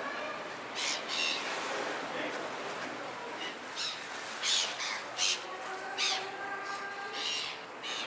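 Seagulls giving short, harsh squawking calls, about seven in a row at irregular intervals.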